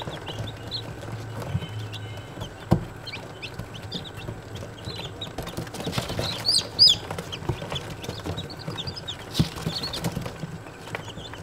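A group of day-old chicks peeping continuously in short, high chirps, many overlapping. A few sharp knocks cut through, the loudest about two-thirds of the way in.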